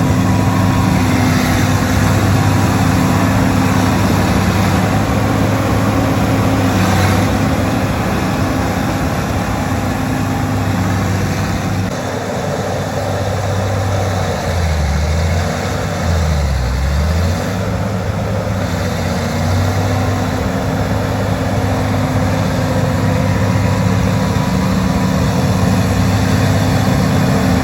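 Bulldozer's diesel engine running steadily; about two-thirds of the way through its pitch sags and comes back up, as it would when the engine takes load.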